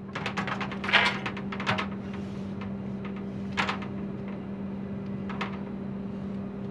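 A 14-pound sledgehammer on a hinged swing rig knocking and rattling against ribbed aluminium caravan sheeting as it bounces and settles after a strike. A quick run of small knocks comes in the first two seconds, then two single taps, over a steady low hum.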